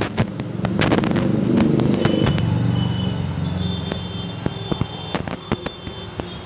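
Firecrackers going off in sharp, irregular cracks. A motor vehicle's engine passes about a second in and fades away.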